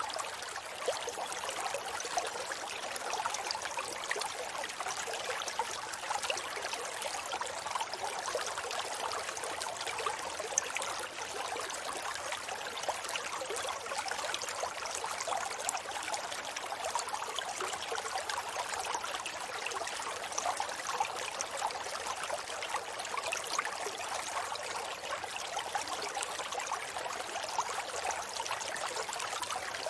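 River flowing steadily: an even rush of water with many small splashes and bubbles throughout.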